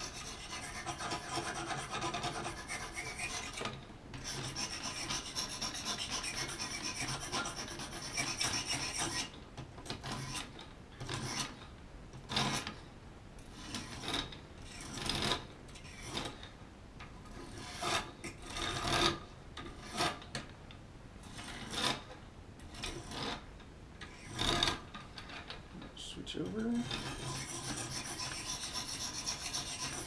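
Sharpening stones scraping along the edge of a Gerber multi-tool's knife blade held in a sharpening jig. Steady rasping strokes run for the first several seconds, then come as separate strokes about one a second, then turn steady again near the end.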